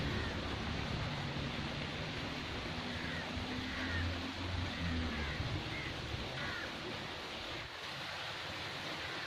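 Steady outdoor wind noise on the microphone, with a low motor-like hum for a few seconds in the middle and a few faint high chirps.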